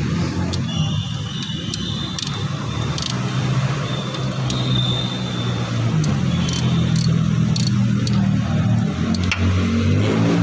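Toyota Vios engine running steadily at idle, with a few sharp clicks over it.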